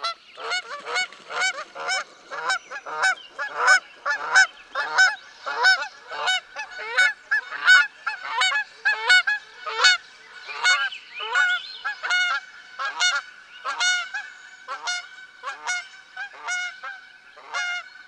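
Geese honking: a fast, continuous run of nasal honks, about two a second, starting abruptly.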